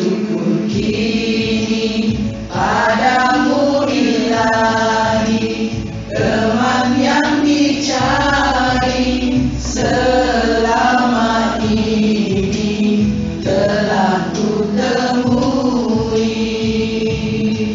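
Music: a group of voices singing together over a steady accompaniment, in phrases with short breaks between them.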